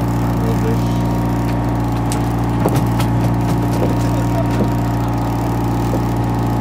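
A party fishing boat's diesel engine running steadily, a low, even drone, with a couple of light knocks about halfway through.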